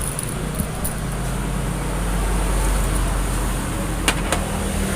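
Steady low background rumble, with two sharp clicks about four seconds in as a USB cable is handled and plugged in.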